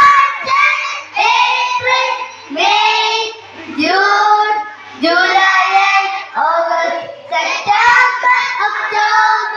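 Young children singing, phrase after phrase with short breaks between.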